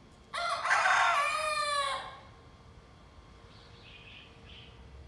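A young rooster (cockerel) crowing once, its first crow: a single call about a second and a half long that drops in pitch as it ends. A few faint short chirps follow near the end.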